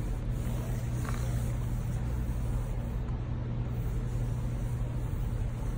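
Steady low background hum, with one faint soft tap about a second in.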